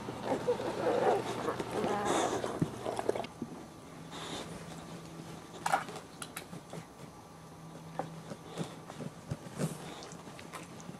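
Young boxer puppies making small grunts and whimpers, busiest in the first three seconds, then quieter with scattered short clicks and brief rustly noises.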